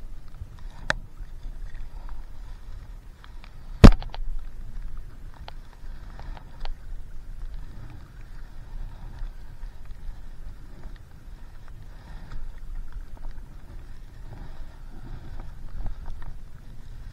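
Water splashing and lapping around a stand-up paddleboard as it is paddled, over a low, uneven wind rumble on the microphone. A sharp knock, the loudest sound, comes just before four seconds in, and a smaller click about a second in.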